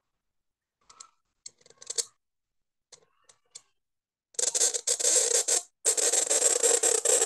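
Calligraphy qalam's cut nib scratching across paper: a few short scratches, then from about four seconds in a continuous rasping scratch, broken once briefly, as the pen draws a long curved ink stroke.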